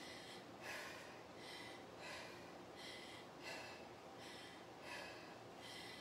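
A woman's faint, quick breathing, in short breaths a little more than one a second, hard from the effort of dumbbell curls.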